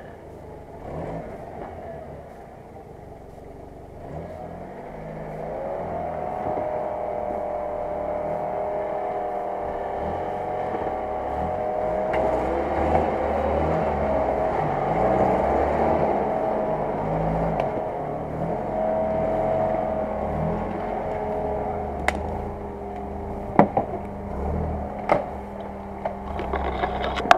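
UAZ-469 off-roader's engine pulling under load as it climbs out of a muddy creek bed. It grows louder about five seconds in and holds a steady drone. Several sharp knocks come near the end as the vehicle pushes past close by.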